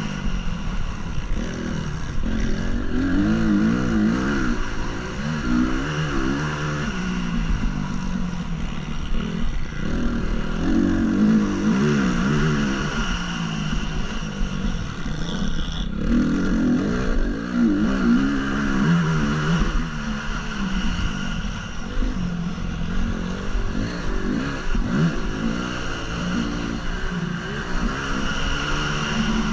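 2014 Honda CRF250's single-cylinder four-stroke engine heard from a helmet-mounted camera, revving up and backing off over and over, its pitch rising and falling every few seconds as the motocross bike is ridden hard.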